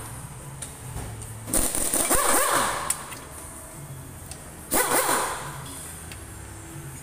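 Pneumatic impact wrench running in two short bursts, the first about a second and a half in and the second about five seconds in, each with a hiss of air, undoing bolts on a Toyota 1NZ-FE engine and transaxle.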